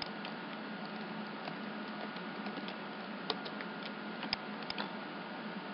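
Computer mouse clicking now and then, about half a dozen sharp single clicks spaced irregularly, a few of them close together near the end. Under the clicks is a steady hiss with a faint hum.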